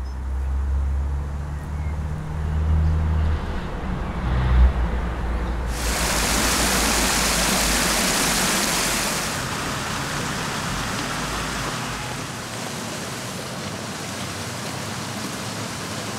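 A low rumble of road traffic, with a brief thump about four and a half seconds in. About six seconds in the rush of water spilling over a low weir cuts in, loud for a few seconds and then going on more softly.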